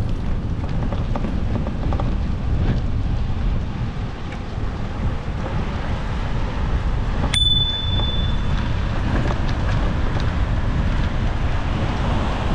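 Wind rushing over the microphone of a moving bicycle, a steady low rumble. A little past halfway, a single ding of a bicycle bell rings on for about a second.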